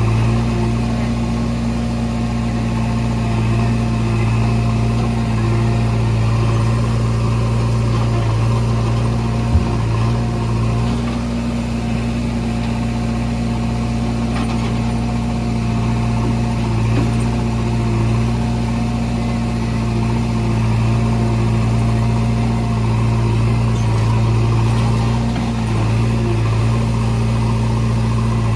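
JCB 3DX backhoe loader's diesel engine running steadily, its note swelling and easing every few seconds as it works, with one short knock about ten seconds in.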